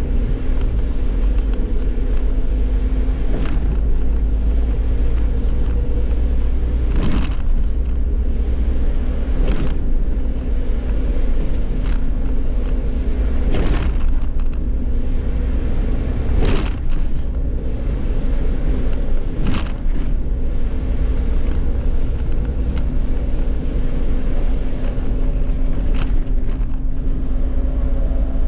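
Irisbus Cityclass city bus with its Cursor CNG engine running steadily on the move, heard from the driver's seat: a constant low drone with a steady hum. Now and then a short sharp rattle or knock cuts through, several times over.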